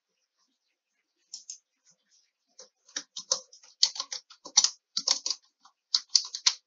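Typing on a computer keyboard. A couple of keystrokes come about a second and a half in, then a quick run of keystrokes from the middle to the end.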